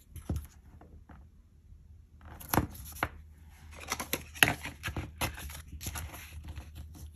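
Washi tape and paper handled on a table: the strip is taken off the roll and pressed down onto the paper, with a series of sharp taps and clicks and light paper rustling. The loudest taps come about two and a half, three and four and a half seconds in.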